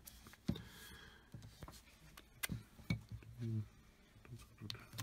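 Handling noise of two Bosch common-rail diesel injectors being picked up and turned over in the hands: scattered light clicks and knocks of the metal bodies and plastic connectors against each other and the table.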